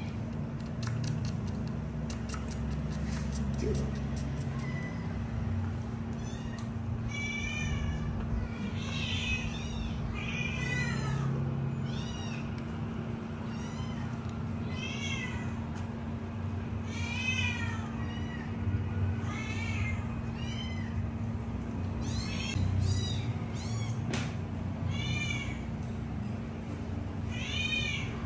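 Young kittens mewing again and again, thin high-pitched calls coming every second or two from about a quarter of the way in. A steady low hum runs underneath.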